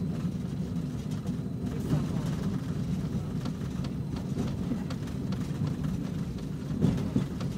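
Tram running, heard from inside the passenger cabin: a steady low rumble, with a couple of louder knocks near the end.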